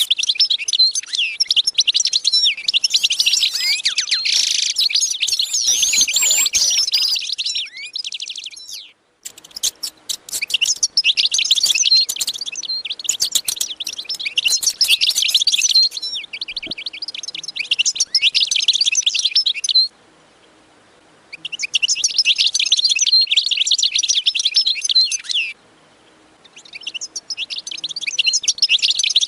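Dense chorus of many small birds chirping and twittering at once. It cuts off abruptly a few times, leaving short gaps before it starts again.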